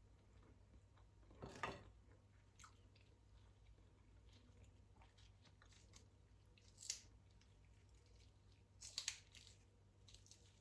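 Faint sounds of a person eating: quiet chewing with a few short crunchy clicks, about a second and a half in, around seven seconds and around nine seconds.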